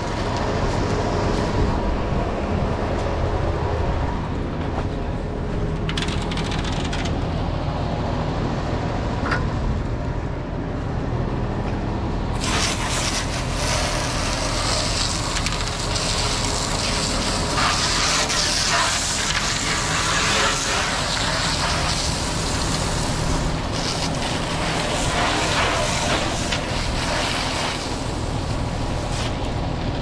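Concrete mixer truck's diesel engine running steadily at the back of the truck while a water hose sprays down its concrete discharge chute to wash it out. The hiss of the spray grows loud from a little under halfway in and eases about ten seconds later.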